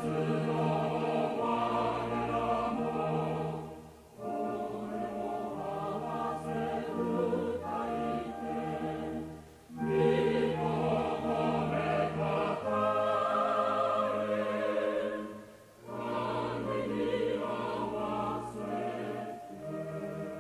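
A choir singing a Christmas hymn in long held phrases of about six seconds each, with brief breaks between them.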